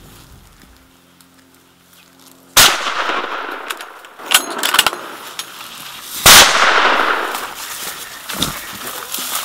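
Two hunting-rifle shots about four seconds apart. Each is a sharp crack followed by a long rolling echo that fades over a couple of seconds, with a few fainter cracks in between.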